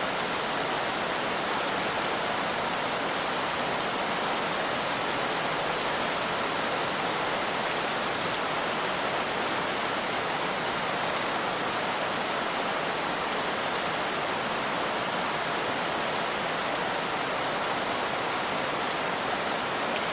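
Heavy rain falling steadily, a dense even hiss of many drops with no let-up.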